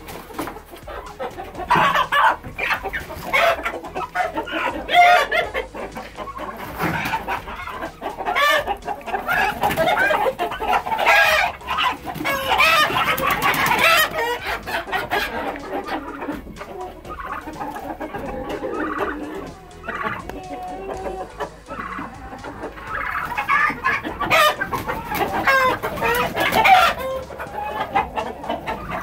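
Chickens squawking and clucking in a coop while roosters are grabbed by hand and carried by the legs, with a rooster crowing and wings flapping. The squawking rises to its loudest about halfway through and again near the end.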